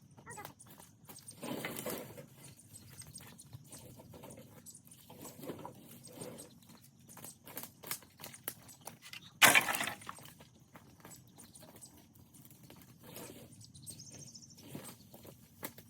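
Irregular clinks, knocks and crackles of junk and brush being handled, with one much louder crash about nine and a half seconds in.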